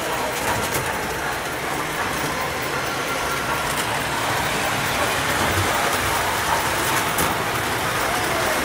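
Model trains running on the layout's track, a steady rolling whir with a few faint clicks.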